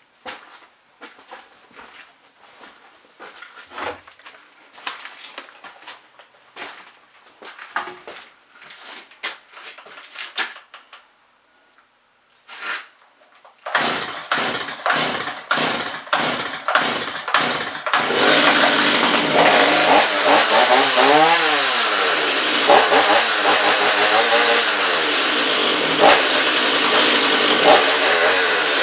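Stihl 021 two-stroke chainsaw being pull-started. Scattered clicks and knocks of handling come first, then a quick series of cord pulls about halfway through. The engine catches after a few seconds of pulling and runs, revving up and down; its carburettor still needs fine-tuning.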